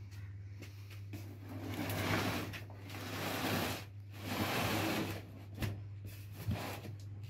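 Cardboard box loaded with junk dragged across a concrete floor: three long scrapes, then two knocks, over a steady low hum.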